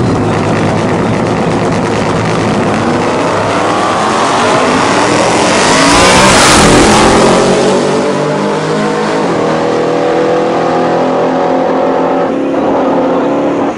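Two drag-race vehicles, a pickup and a car, launching and accelerating hard down the strip. Their engine pitch climbs repeatedly through the gears, growing loudest as they pass about six to seven seconds in, then fading as they run away down the track.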